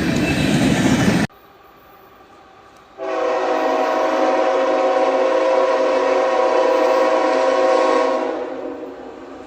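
Loud, steady noise that cuts off abruptly about a second in. About three seconds in, a third-generation Nathan K5HL five-chime locomotive air horn sounds one long blast, several steady notes held together as a chord for about five seconds, then fades.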